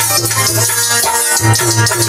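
Harmonium playing held chords of a Hindi devotional vandana, with rhythmic rattling percussion keeping the beat in an instrumental passage.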